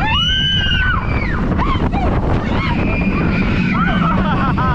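Wind buffeting the microphone on a moving B&M hyper roller coaster, with riders' screams rising and falling over it.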